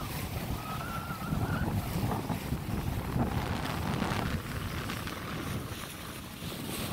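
Wind buffeting the microphone on the deck of a schooner under sail, over the rush of water past the hull.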